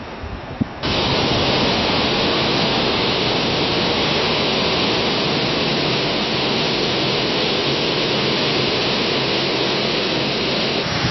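Leaves rustling in a strong wind as a dense, steady rush of noise that starts abruptly about a second in, after a short quieter stretch of rustling.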